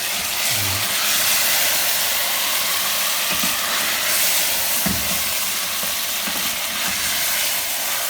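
Beef keema frying with tomatoes and spices in a cooking pot: a steady sizzle, with a couple of soft knocks about three and a half and five seconds in.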